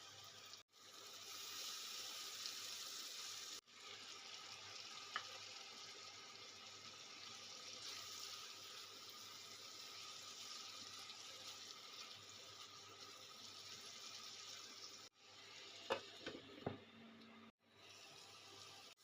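Prawns frying in coconut milk in a pan, a steady sizzle, with a few sharp clinks. The sound breaks off abruptly several times.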